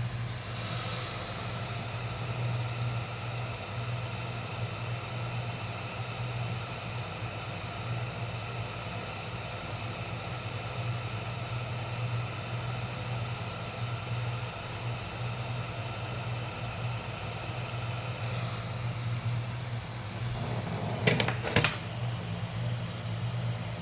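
Hot air rework blower running steadily, a constant low hum under an even airy hiss. Two sharp clicks near the end.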